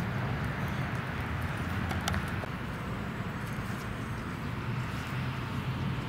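Steady low rumble of vehicle noise, with a single sharp click about two seconds in.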